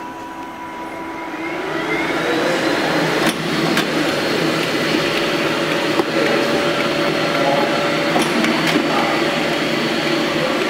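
Wuhao WH-533 automatic paper creasing machine starting up: its motors spin up with a rising whine over the first few seconds, then run steadily with a hum as it feeds paper through, broken by a few sharp clicks.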